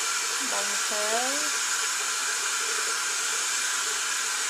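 Steady rushing hiss of running water. About a second in, a short pitched sound rises in pitch over it.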